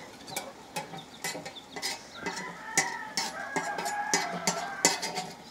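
Light, sharp clicks and taps of a steel knife blade on a metal comal as it nudges toasting allspice and cloves, with a few clicks standing out loudest. A chicken calls with a drawn-out, wavering cry from about two seconds in until near the end.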